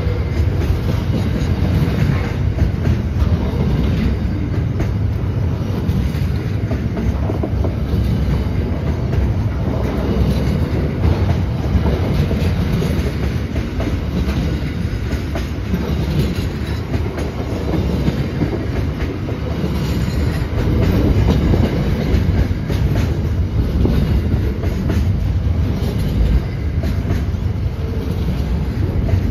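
Freight train container wagons rolling past close by, with a steady noise of steel wheels on the rails and many repeated wheel clicks as the bogies go by.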